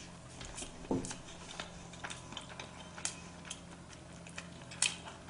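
Chewing a mouthful of sushi close to the microphone: irregular soft, wet clicks and smacks from the mouth, with one low thud about a second in.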